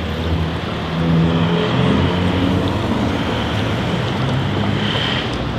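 A car engine running close by, its pitch shifting up and down over a steady rushing noise.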